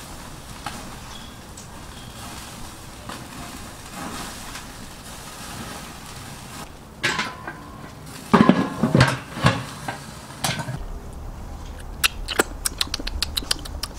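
Basting food on a barbecue grill with barbecue sauce: a bowl and brush clinking and metal grill parts clattering, with a few loud knocks about eight to ten seconds in. Near the end comes a quick run of handling clicks.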